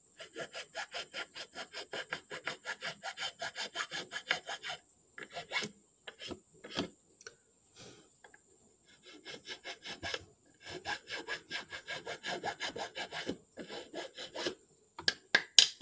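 A thin metal file rasping back and forth in a groove in a small wooden board, about five quick strokes a second. The filing stops for a few seconds in the middle, with only a few single strokes, then starts again.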